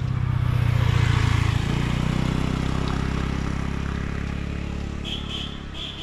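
A motor vehicle passing by: its engine grows louder to a peak about a second in, then fades away over the next few seconds.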